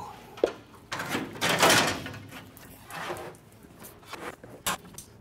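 Metal shop-work clatter: a sharp click, then a loud scraping rattle lasting about a second, a weaker scrape and another click near the end.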